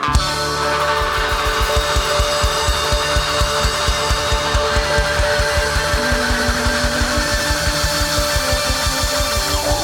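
Live rock band playing loud, distorted music, with sustained electric guitar over a fast, even drum beat that starts about a second in.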